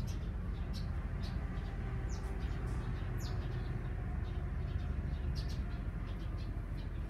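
Scattered short, high-pitched animal chirps, some sweeping downward in pitch, over a steady low rumble.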